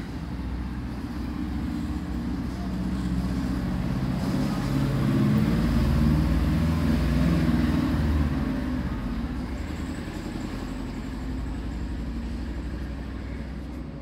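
A motor vehicle's engine rumble, swelling to a peak about halfway through and then easing off.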